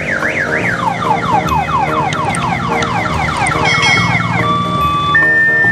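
Electronic multi-tone siren of an odong-odong tourist train, cycling through its patterns. It opens with a fast rising-and-falling warble, then plays a quick run of falling whoops about four a second, and about four seconds in switches to a two-tone hi-lo.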